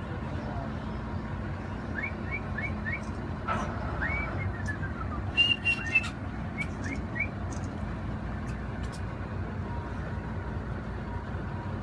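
Bald eagles giving high chittering calls: a few short rising chirps about two seconds in, a falling string of notes around four seconds, and more chirps near the middle. A couple of loud, sharp human whistles come about halfway through. A boat engine hums low and steady underneath.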